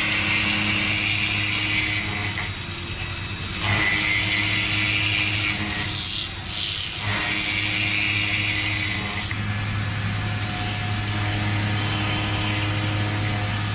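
Industrial machinery running with a steady low hum. There are three short bursts of hissing or cutting noise in the first seven seconds, and the sound shifts slightly about nine seconds in.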